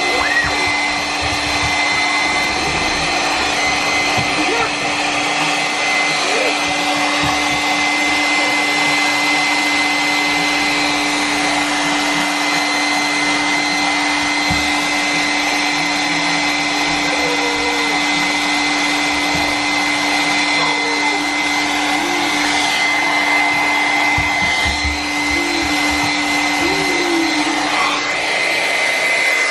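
Hair dryer running steadily, blowing warm air to dry a pet bird after its bath. It has a constant hum and a thin high whine.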